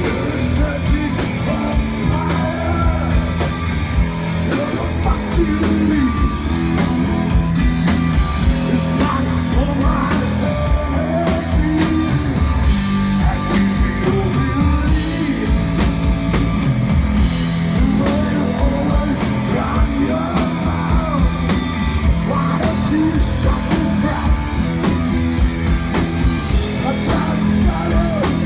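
Rock band playing a slow song live: guitars, bass and drum kit, with a lead voice singing over them.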